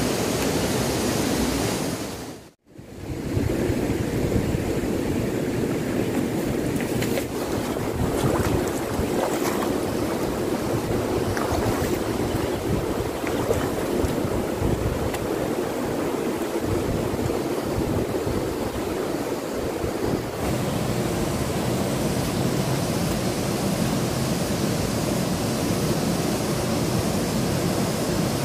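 Steady, even outdoor rushing noise with no distinct events, of the kind made by river water and wind on the microphone, broken by a short dropout about two and a half seconds in.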